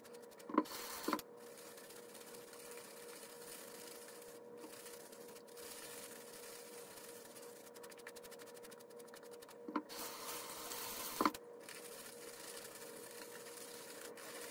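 Shaving brush swirling soap lather over a stubbled face: a soft, steady scratchy brushing over a faint steady hum. There are a couple of sharper clicks about half a second in, and a louder stretch of brushing at about ten to eleven seconds.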